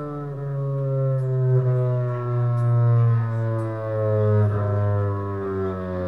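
Upright double bass played with a bow: long held notes, each sliding slightly down and then stepping lower, changing about every two seconds.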